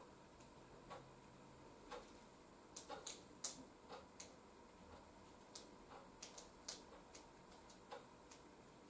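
Small, irregular clicks and ticks of a DSLR camera's buttons and dial being worked by hand, coming in a cluster through the middle, over quiet room tone.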